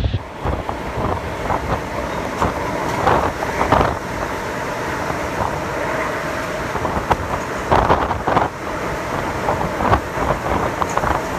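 Typhoon winds blowing hard in gusts and buffeting the microphone, with a deep rumble that swells and eases several times.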